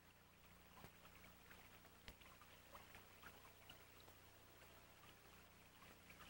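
Near silence: a faint steady low hum with scattered faint clicks, the background noise of an old film soundtrack.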